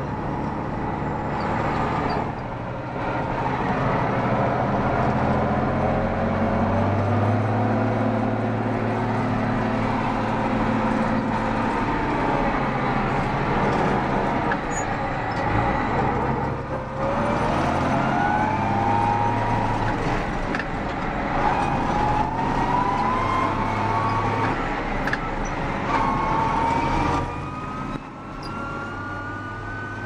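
Belarus MTZ-1221 tractor's six-cylinder turbodiesel heard from the cab, running under load while driving. A whine rises in pitch as the tractor picks up speed, and the sound dips briefly three times as gears are changed.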